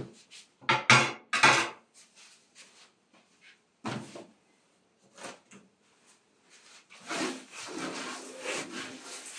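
A few sharp knocks and clatters of things being handled near the start, and one more about four seconds in. Then, near the end, a cloth rubs back and forth over a cloth-covered table as it is wiped.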